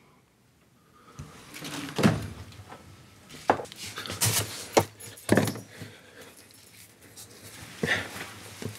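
Handling sounds: a freezer door and a cardboard ice cream tub being opened and moved, heard as a string of short clicks and knocks, with a spoon digging into the ice cream near the end.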